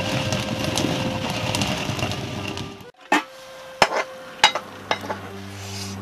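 Hand-turned stone quern grinding grain: a steady gritty rumble of stone rubbing on stone, which stops abruptly about three seconds in. Four sharp knocks follow over the next two seconds.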